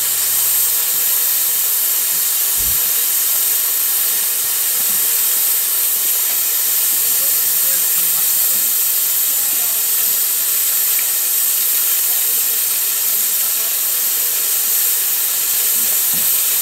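Narrow-gauge steam locomotive letting off steam: a loud, steady hiss that does not change.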